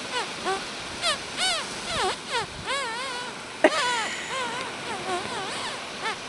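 A dog whine-singing on request: a string of short, high whining notes, each sliding up and down in pitch, with a sharper, louder one about halfway through.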